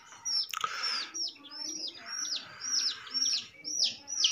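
Newly hatched domestic chicks peeping: a steady run of short, high, falling peeps, about three a second, with several chicks overlapping more densely near the end.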